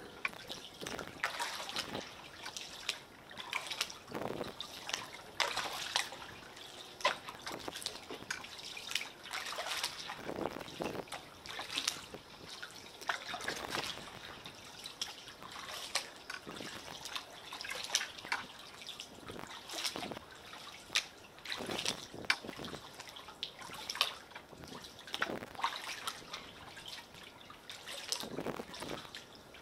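Water lapping and dripping around pier pilings close to a kayak: a steady wash broken by irregular small splashes and drips, a few every second.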